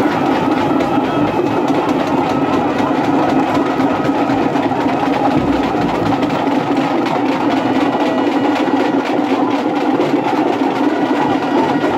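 Loud, continuous din of a packed festival crowd, with a dense fast clatter running through it.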